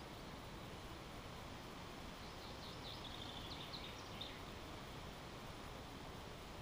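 A small songbird sings one short phrase of quick high chirps about two seconds in, lasting about two seconds, over a steady faint background hiss.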